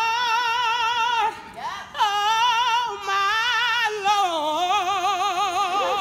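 A woman singing solo without accompaniment, holding long notes with a wide vibrato, with a short break a little over a second in.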